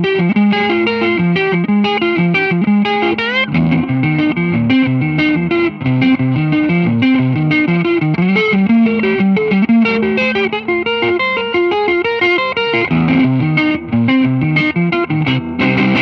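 Electric guitar played through a Supro amplifier: quick runs of notes and chord stabs, with a rising slide in pitch about three seconds in.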